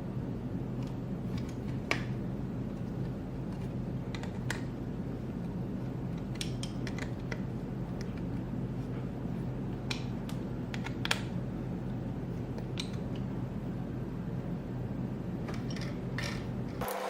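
Scattered light clicks and ticks of small screws and 3D-printed plastic parts being handled and driven in with a hand screwdriver, over a steady low hum.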